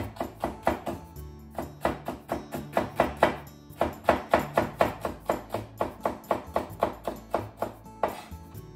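Chef's knife slicing green bell pepper into thin strips on a wooden cutting board: quick, even knocks of the blade on the board, about four or five a second, in runs with short pauses. Soft background music runs underneath.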